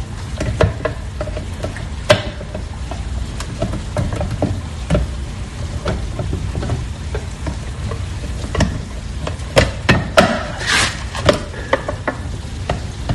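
Heavy electrical wires being bent and pushed back into a breaker or junction box by hand: continuous crackling and rustling handling noise with scattered clicks and knocks, and a cluster of louder knocks about ten seconds in.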